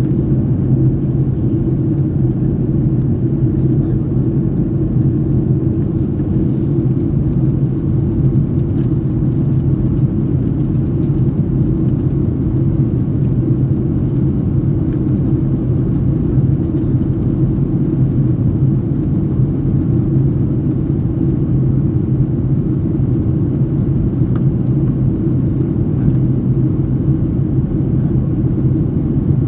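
Steady, loud low rumble of a passenger aircraft, holding even without rising or falling.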